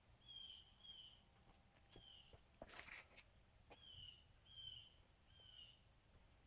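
Faint outdoor ambience: a bird repeats a short, slightly falling high chirp six times at uneven intervals over a steady high hiss, with a brief rustle about halfway through.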